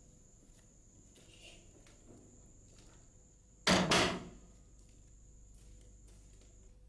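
A wooden door is pushed shut with one loud bang, with a quick double impact about four seconds in. Otherwise there is only low room noise.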